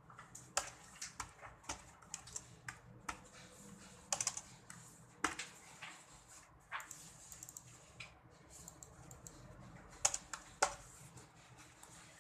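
Typing on a computer keyboard: irregular key clicks, a few a second, some louder taps among them, over a faint steady low hum.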